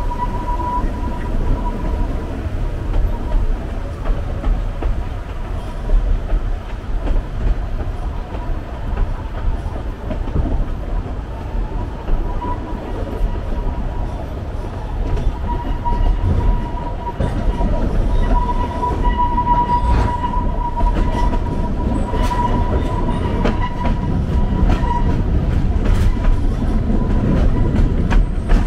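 Narrow-gauge forest railway train running along the track: a steady low rumble of wheels on rails, with a thin steady high squeal. Sharp clicks from the wheels and rail joints come more often in the second half.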